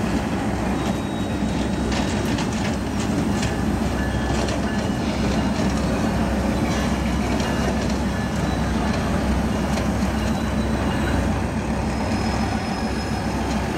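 Diesel locomotives moving slowly along a rail yard track: a steady low engine drone, with faint high wheel squeals now and then.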